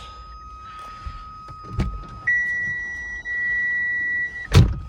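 Mk3 Ford Fiesta's electrical buzzer sounding a steady high tone with the lights on and the doors shut. It jumps to a higher, louder tone about two seconds in and drops back near the end, where a heavy thump cuts in. The owner suspects a bad earth or bad connection giving the buzzer a rogue signal.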